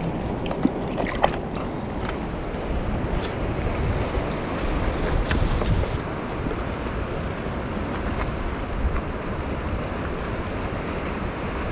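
Wind buffeting the microphone over the steady wash of small waves against a harbour breakwater, with a few light clicks in the first half.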